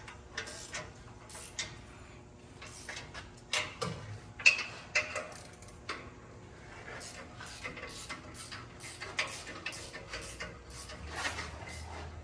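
Irregular clicking and tapping of hand tools on metal, with one sharper knock about four and a half seconds in. A low steady hum comes in near the end.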